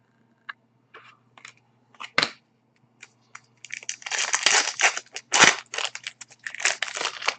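Trading card pack wrapper being torn open and crumpled by hand, with scattered crackles at first, then a dense stretch of crinkling and tearing in the second half, with one sharp loud crack.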